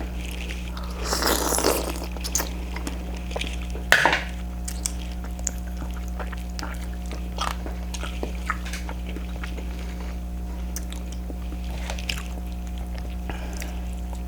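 Close-up eating sounds: shrimp in butter sauce being chewed with wet smacking, a louder squishy stretch about a second in and a sharp click near four seconds, then quieter scattered clicks. A steady low electrical hum runs underneath.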